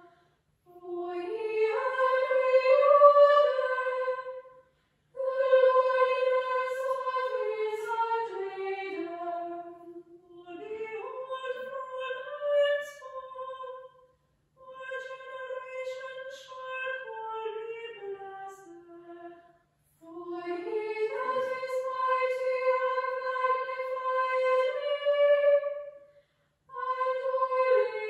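Small choir of female voices singing unaccompanied, in phrases of a few seconds each with short breaks between them.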